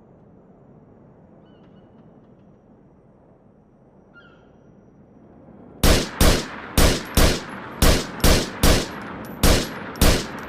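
Heckler & Koch PSG-1 semi-automatic 7.62×51 mm rifle firing nine shots in quick succession, about two a second, each with a short echoing tail. The shots come after about six seconds of faint background hiss broken by two faint clinks.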